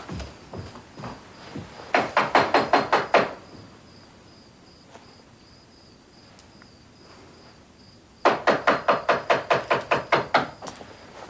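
Rapid knocking on a door: a short run of quick, even raps about two seconds in, then a longer run of the same raps about eight seconds in.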